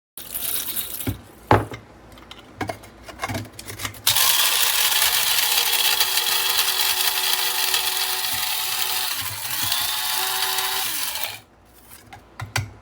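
A few sharp clicks and knocks of handling, then an electric blade coffee grinder runs for about seven seconds with a steady motor whine and cuts off suddenly.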